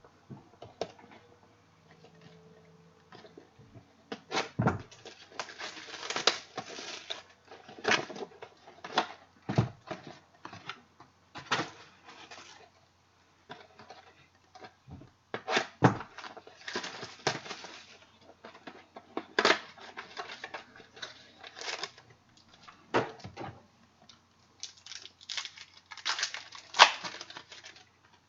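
A sealed box of trading cards being opened and handled: crinkling and tearing of the wrapper, cardboard scraping, and sharp clicks and knocks in irregular spurts, starting about four seconds in.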